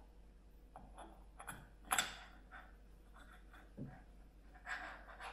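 Scattered clicks and knocks of M6 screws and a hex key being handled and set into the mount's head plate. The sharpest click comes about two seconds in, with a dull thump near four seconds and a short scrape near the end.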